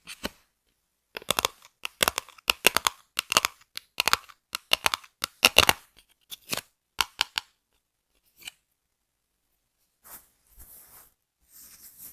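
Hair-cutting scissors snipping in quick irregular runs of sharp clicks, then soft rustling near the end.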